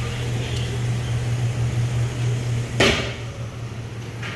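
A steady low machine hum that stops about three seconds in, at the same moment as a single short, sharp noise.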